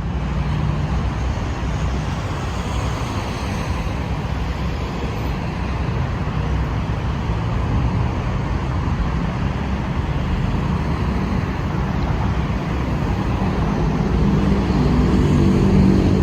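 Alstom Citadis 305 tram running along the line, a steady low rumble and running noise. A motor hum grows louder near the end.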